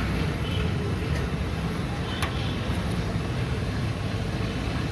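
Steady low rumble of busy street noise and traffic, with a single sharp click about two seconds in.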